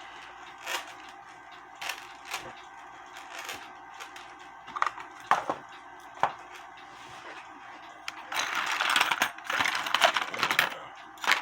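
Scattered small metallic clicks and taps from small parts being handled, then a few seconds of rustling and rattling starting about eight seconds in.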